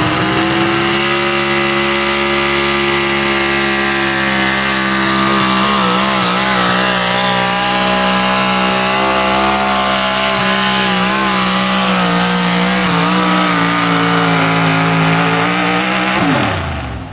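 Four-wheel-drive pickup truck engine held at high revs under load while pulling a weight-transfer sled. The pitch stays nearly level with a slight waver, then drops sharply about sixteen seconds in as the throttle is let off at the end of the pull.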